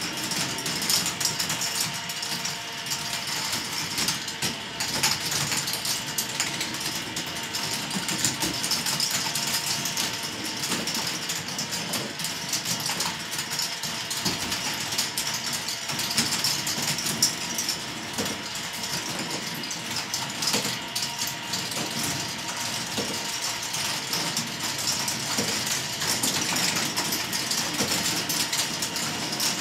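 Large K'nex ball machine running: many plastic balls clicking and rattling along K'nex tracks and lifts in a continuous clatter, over the steady hum of the lift motors.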